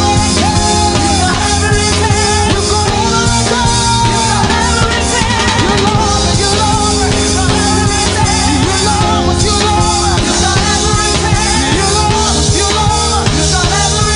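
Loud live gospel praise-break music from a band, with a fast, steady drum beat under a wavering melody line.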